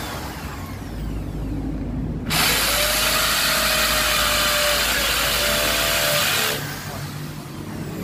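Hammer drill boring into a concrete beam overhead, running steadily for about four seconds from a little after two seconds in, then stopping. It is drilling the hole for a metal plug anchor.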